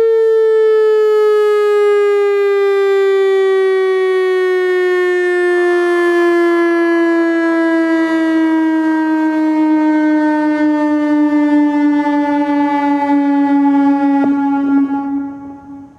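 Whelen WPS-3000 series electronic tornado siren winding down at the end of its test. Its tone falls slowly and steadily in pitch, then dies away quickly near the end.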